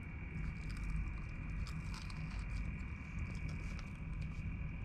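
Room air conditioner humming steadily with a faint high whine, under light clicks and crunches from someone eating out of plastic takeaway containers.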